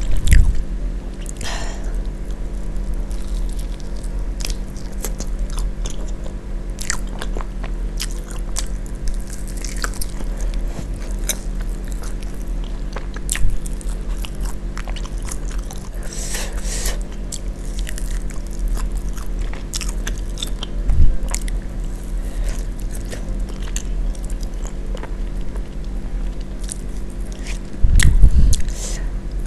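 A person biting and chewing fried chicken wings close to the microphone, with scattered crisp crunches and wet mouth clicks and a few louder bites, the loudest near the end. A steady low hum runs underneath.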